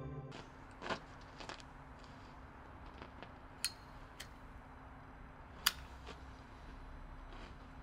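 A cigarette lighter being flicked, a few separate sharp clicks spread over several seconds, the loudest near the end, over a faint steady hum.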